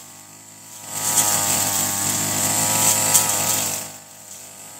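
Brush cutter engine revving up about a second in and running at high speed for about three seconds as it cuts grass, then dropping back.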